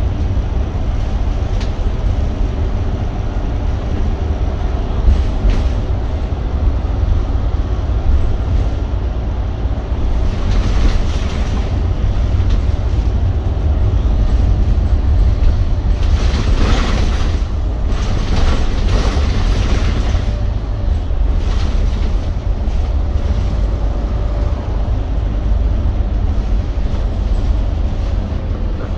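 Wrightbus GB Hawk single-deck bus under way, heard from inside the rear of the saloon: a steady low rumble of engine and road. Louder hiss rises about ten seconds in and again from about sixteen to twenty seconds in.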